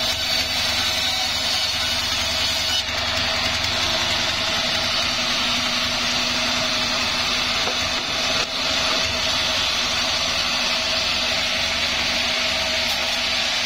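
Sawmill saw machinery running steadily with a constant mechanical drone and a high hiss, with two brief dips, about three and eight seconds in.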